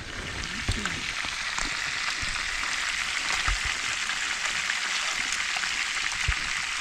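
Hot cooking oil sizzling steadily: a hiss full of small crackles that builds over the first second or so, with a few dull knocks underneath.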